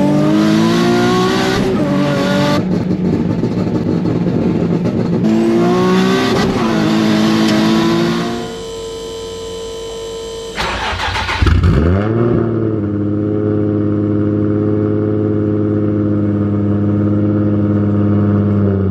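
Single-turbo Nissan 350Z V6 accelerating hard, its revs climbing and dropping through several gear changes. About halfway through it goes quieter; then the engine starts up with a brief rev and settles into a steady idle.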